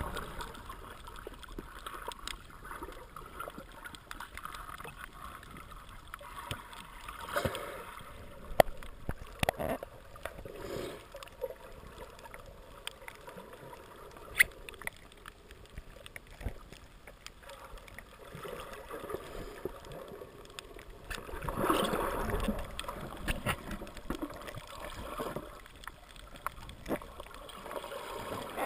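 Water moving and gurgling, heard muffled through an underwater camera, with scattered small clicks and knocks and a louder swell of water noise about two-thirds of the way through.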